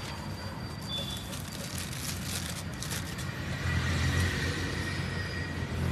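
Road traffic: a vehicle engine runs close by, its low drone getting louder a little past halfway, with a few light clicks mixed in.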